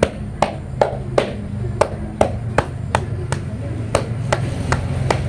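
Chest physiotherapy percussion: a cupped hand patting steadily on a patient's back, about two to three slaps a second, to loosen phlegm in the lungs.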